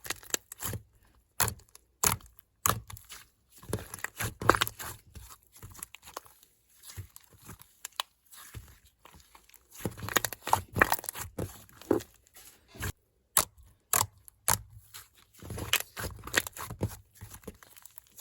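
Slime being squeezed and pressed by hand, giving clusters of crackles and sticky pops with short pauses between them.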